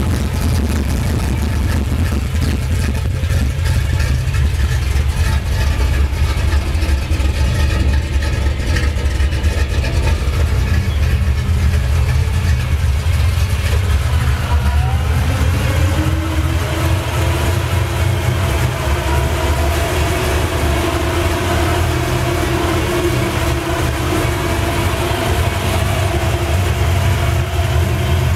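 1982 Chevrolet engine idling roughly, its low rumble unsteady and fluttering. About halfway through, a higher steady whine joins the idle.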